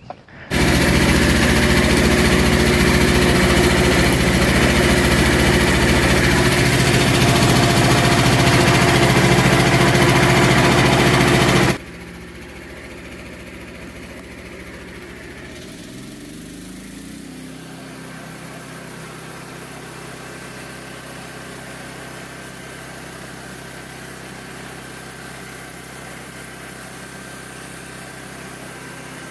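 Small gasoline engine of a Frontier OS27 portable sawmill running steadily and loud. About twelve seconds in, the sound drops abruptly to a much quieter steady engine hum, with a brief shift in pitch a few seconds later.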